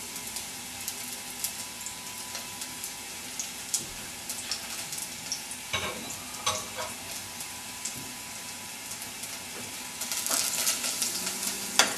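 Diced garlic sizzling and crackling in hot olive oil in a small stainless steel saucepan, with a few light knocks of the pan. The sizzle grows louder about ten seconds in as the pan is lifted and swirled.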